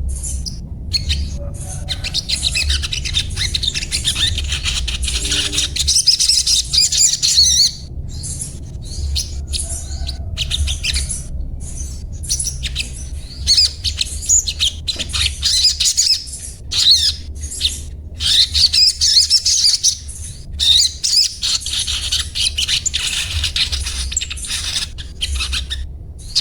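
Sogon (sogok ontong) songbird twittering in a fast, high-pitched chatter of short chirps and repeated 'cuet cuet' notes, broken by a few brief pauses, over a steady low hum.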